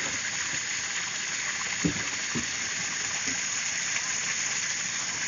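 A steady hiss, with two soft knocks about two seconds in, half a second apart.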